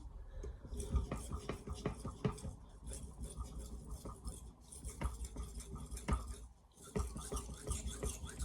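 Knife blade scraping back and forth on a wet 6000-grit polishing whetstone in a run of quick strokes, with a short pause about two-thirds of the way through.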